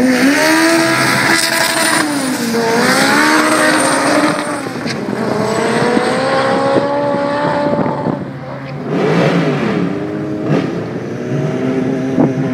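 Drag-racing cars, one of them a turbocharged BMW 535, accelerating hard at full throttle down the strip. The engine note climbs and drops at each upshift, about two seconds in, again near four and a half seconds and around eight and a half seconds. A steadier engine note follows near the end.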